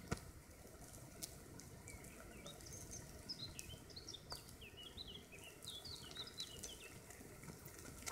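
Faint, continuous crackling sizzle of masses of ants crawling over the dry conifer needles of an anthill, with a few sharper clicks, the loudest just after the start. A small bird sings a run of quick chirps from about two seconds in to about seven seconds in.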